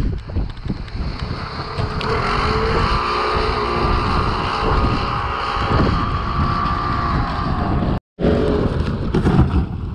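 Engine of a side-by-side utility vehicle running under load as it tows an ice fishing house across the ice on a rope, with a steady whine through the middle, and gusty wind on the microphone. The sound cuts out abruptly about eight seconds in.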